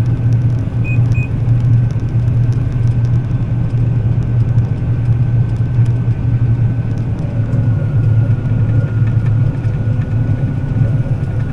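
John Deere combine harvester running steadily under harvest load, a constant low engine drone with a faint steady whine above it. Two short beeps sound about a second in.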